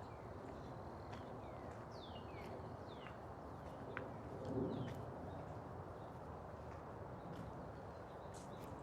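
Songbird calls: a few short chirps that slide down in pitch, clustered in the first half, over a steady low outdoor hiss with a few faint clicks.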